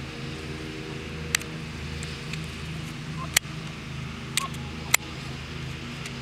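A Schipperke puppy giving four short, sharp yaps spread unevenly over a few seconds, over a steady low engine hum.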